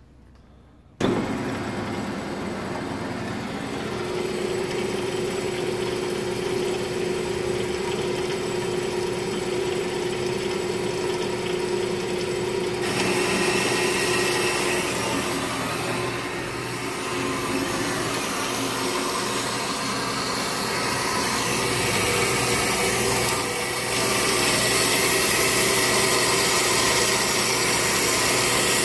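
An Ellis 3000 metal-cutting band saw with a three-phase motor is switched on about a second in and runs steadily with a held tone. About 13 seconds in the sound turns harsher and hissier as the blade starts cutting into a steel tube clamped in the vise.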